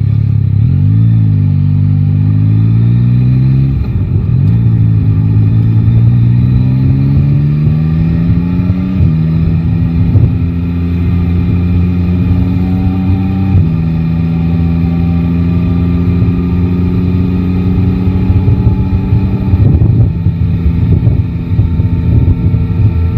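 Yamaha Tracer 9 GT's inline-three engine pulling away and accelerating, its pitch climbing, with upshifts about four and nine seconds in and another around thirteen seconds. After that it runs at a steady engine speed.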